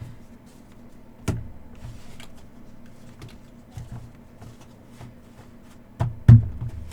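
Handling noises on a tabletop as trading-card packs and cards are moved: light clicks and ticks, a sharper knock a little over a second in, and two louder thumps close together near the end.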